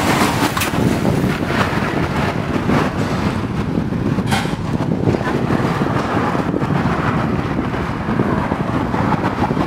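Army cargo truck driving past at close range, its diesel engine running with a steady low rumble, with wind buffeting the microphone.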